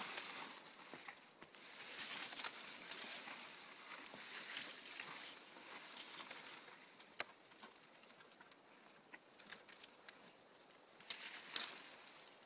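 Palm fronds rustling and crackling as a horse rubs and scratches against them while nibbling, in uneven bouts with a single sharp snap partway through.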